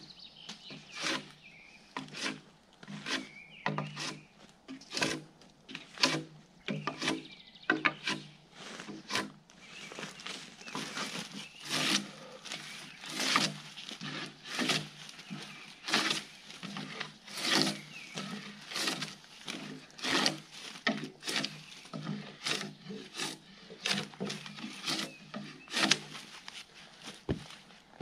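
Gränsfors Bruks drawknife peeling bark off a log, one scraping pull after another at about one stroke a second.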